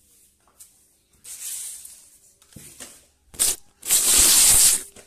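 Soft grass broom swishing across a concrete floor in a few strokes, the last and loudest about a second long near the end.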